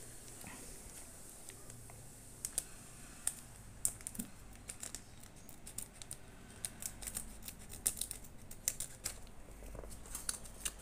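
Small scissors cutting open a trading-card booster pack: a run of short, sharp clicks and snips, irregularly spaced.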